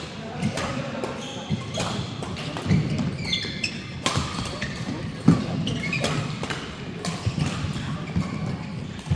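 Indoor badminton doubles rally: a series of sharp racket hits on the shuttlecock every second or so, with short high squeaks and faint voices in the hall.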